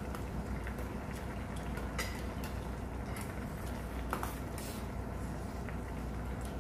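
Metal spoons and chopsticks clinking against stainless bowls and a pot during a meal, a few sharp clinks with a short ring, along with eating sounds over a steady low hum.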